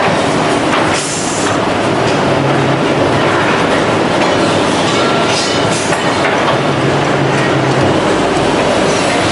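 FK-610BL semi-automatic finger joint machine running: a dense, steady mechanical clatter and rattle. A low hum comes in twice for about a second, and there are a couple of short hisses.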